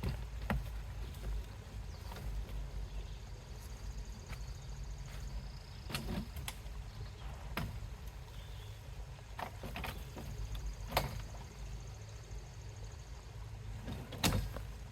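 Scattered sharp clicks and knocks, about eight at irregular intervals, over a steady low rumble; the loudest knocks come about 11 and 14 seconds in.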